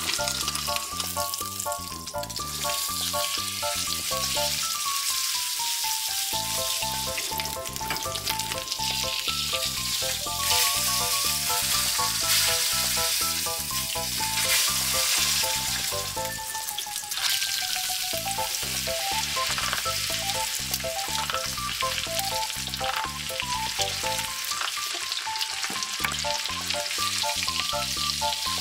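Tomahawk steak, a thick bone-in beef ribeye, sizzling steadily as it sears in a hot cast-iron pan; near the end it fries in foaming melted butter. Light background music with a melody and a steady beat plays under the sizzle.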